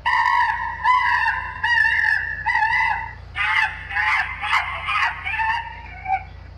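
An animal calling: a loud pitched call in four short segments, then a rougher, more broken call that stops about six seconds in.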